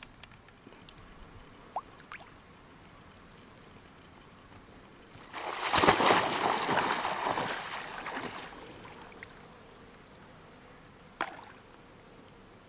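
A dog splashing through the water as it bounds into a lake after a thrown ball, a loud churning splash about five seconds in that lasts around three seconds and fades out. A single short sharp click follows near the end.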